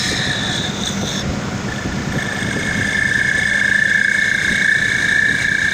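CA-16 mini CNC wood lathe running, with a steady high whine over a low hum. The whine shifts to a new pitch about a second and a half in and grows slightly louder in the second half.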